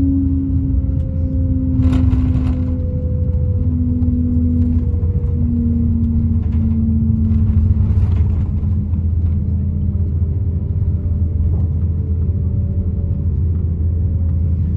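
Cabin noise of an Airbus A350-1000 on its takeoff roll: a steady low rumble from its Rolls-Royce Trent XWB engines and wheels on the runway, with a humming tone that steps gradually lower in pitch. Brief rattles come about two seconds in and again about eight seconds in.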